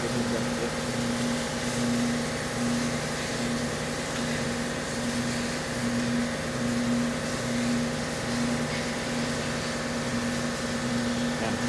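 A steady mechanical hum from running machinery, with a low tone that swells and fades in an even rhythm.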